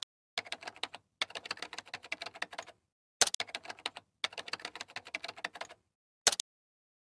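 Rapid keyboard typing clicks, used as a sound effect as text types onto the screen. They come in several runs of a second or so with short pauses between, and a brief burst near the end.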